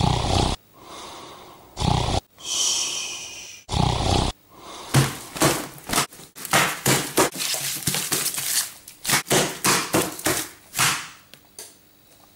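A person snoring and snorting loudly with harsh, throaty blasts. The first few come as separate abrupt bursts, then a quick run of rough snorts follows, several a second, before it dies away near the end.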